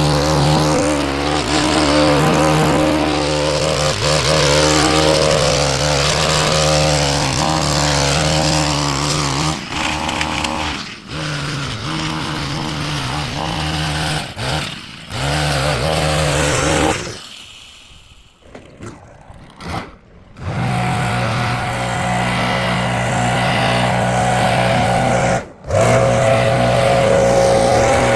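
Small gas engine of lawn equipment running at speed, its pitch rising and falling at times, with abrupt cuts where the sound drops out and resumes.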